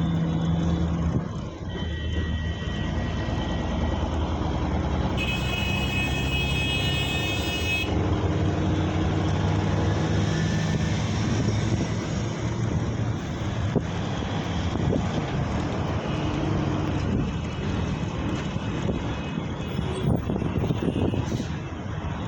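Road traffic: vehicle engines and tyre noise running steadily. About five seconds in, a high-pitched tone with several evenly spaced pitches sounds for about three seconds.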